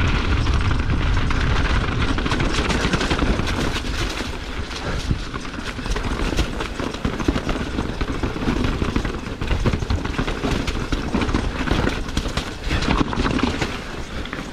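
Mountain bike clattering down a rocky trail: tyres crunching over loose stone and the bike rattling with rapid knocks from the rough ground, over a heavy low rumble.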